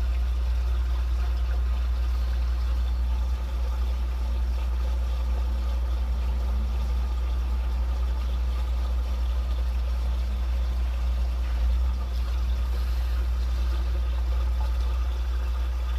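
Water flowing steadily through a drain line, over a constant low rumble.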